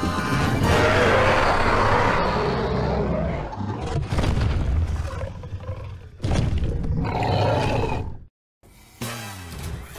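Film sound-effect dinosaur roar over trailer music: a long, loud roar, then further surges a few seconds later. It cuts off abruptly into a brief silence about eight seconds in, and quieter music follows.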